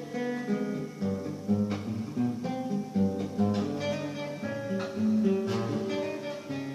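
Acoustic guitar played in a steady strummed rhythm with picked melody notes.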